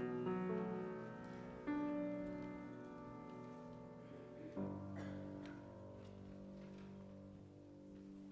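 Soft instrumental keyboard music of slow held chords. New chords are struck at the start, at about two seconds and at about four and a half seconds, and the last one rings on and fades.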